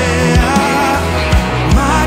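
Live worship band music: a male lead vocalist singing a held, wavering melody over acoustic and electric guitars and keyboard, with low thumps of a beat underneath.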